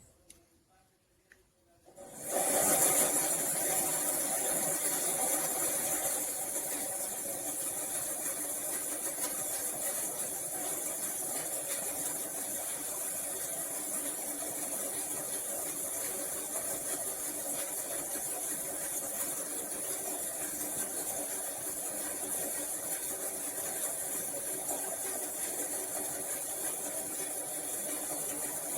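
DC ceiling fan switching on about two seconds in and then running steadily, a constant hiss of moving air with a hum underneath.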